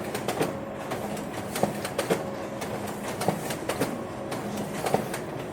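Photocopier running: sharp clicks and clacks at uneven intervals over a steady mechanical hum.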